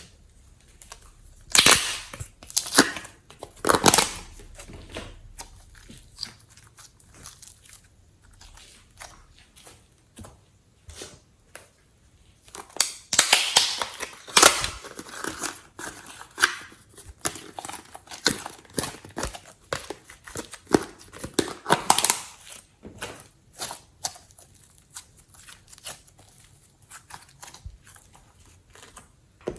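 Slime being squeezed and kneaded by hand, making irregular sticky crackles, clicks and pops, with louder bursts of crackling a few times.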